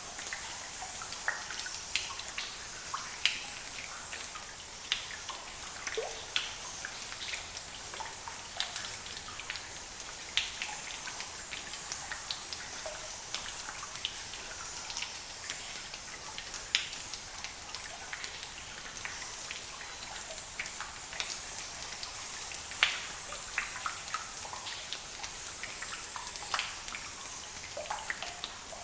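Cave ambience: water drops falling at irregular intervals, some louder than others, over a steady high hiss.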